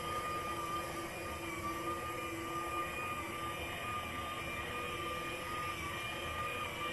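Electric motor of a ride-on toy train whining steadily as it runs around its track, the pitch wavering slightly.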